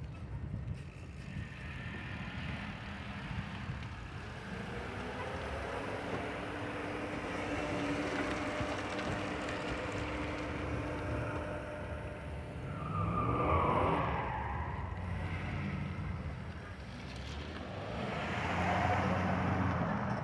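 Cars moving slowly at close range: a steady low engine rumble with tyre noise, swelling in loudness twice, about two-thirds of the way in and near the end.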